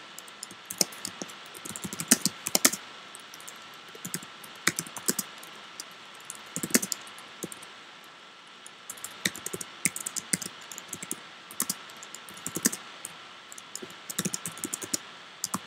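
Computer keyboard typing in irregular bursts of clicking keystrokes, with short pauses between bursts and a longer pause of about two seconds midway.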